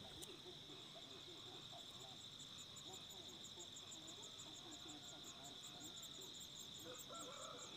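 Faint outdoor insect chorus: a steady high drone with a fast, even ticking chirp above it. A few faint short chirps come near the end.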